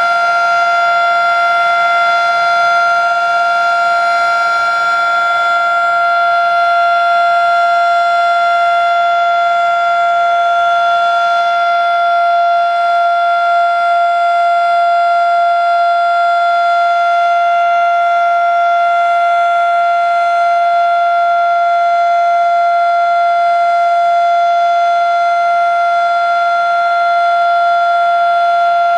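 Federal Sign and Signal Model 3 electromechanical outdoor warning siren sounding a loud, steady tone at full speed, with no wind-up or wind-down.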